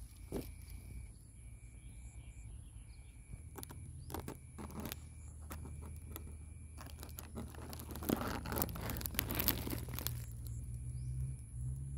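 Thin plastic fruit bag rustling and crinkling as it is handled and pulled off the fruit, with scattered clicks early on and the densest, loudest crinkling about eight to ten seconds in.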